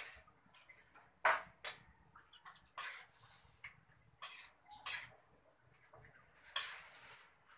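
A spatula scraping and stirring in a frying pan, in short, sharp, irregular strokes about a second apart.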